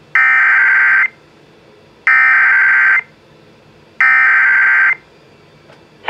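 Emergency Alert System SAME header for a flash flood warning, played through a RadioShack radio's small speaker: three bursts of digital data tones, each about a second long and a second apart.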